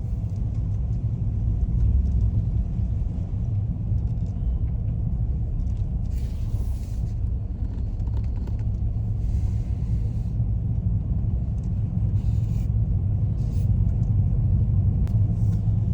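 Car driving along a road: a steady low rumble of tyre and engine noise heard from inside the moving car, with a few faint short hisses along the way.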